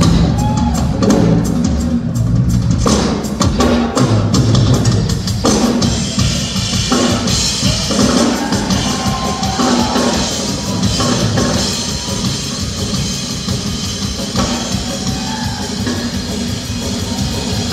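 Live band music with the drum kit to the fore: bass drum, snare and cymbals keeping a steady beat under the rest of the band.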